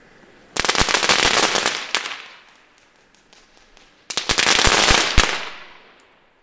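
Small consumer fireworks going off in two sudden bursts of dense, rapid crackling with a few sharper bangs mixed in. Each burst lasts about a second and a half and tails off, the second starting about three and a half seconds after the first.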